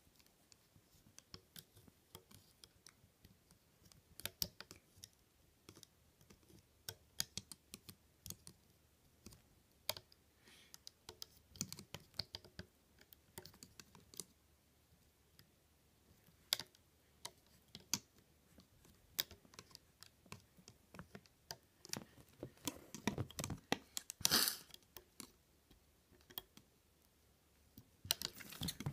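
Faint, irregular clicks and taps of a metal hook tool and fingers on a plastic Rainbow Loom as rubber bands are looped over its pegs, with a brief louder flurry about three quarters of the way through.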